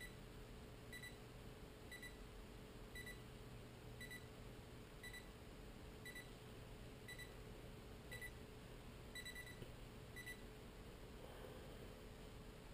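Timex digital alarm clock beeping, one short high beep about once a second, sometimes doubled, stopping about ten seconds in, followed by a faint rustle.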